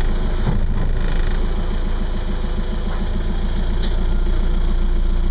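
Boat engine running at idle, a steady low throb with an even pulse.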